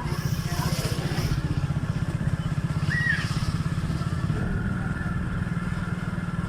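Motorcycle engine running steadily with a rapid pulsing beat while riding along. A brief high chirp sounds about three seconds in.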